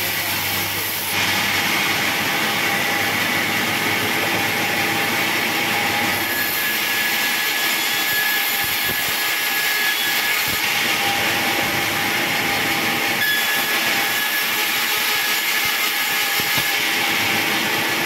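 Sawmill band saw running and cutting through a log: a steady loud hissing whine of the blade in the wood, louder from about a second in, with a thin high whistle that comes and goes twice.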